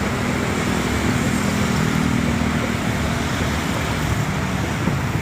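Steady vehicle and road-traffic noise with a low engine hum.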